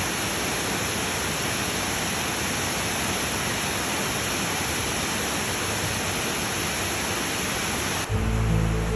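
Steady rush of flowing mountain water, an even hiss with no changes. It stops abruptly about a second before the end, and soft music with low held notes begins in its place.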